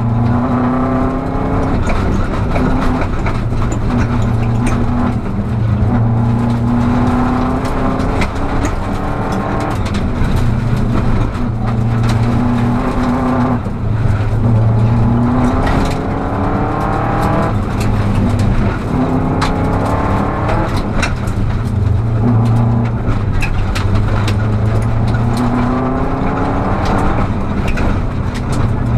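Rally car engine heard from inside the cabin, revving up in repeated rising sweeps every two to three seconds and dropping back between them as the car is driven hard along a gravel stage. Scattered sharp ticks of gravel are thrown against the car.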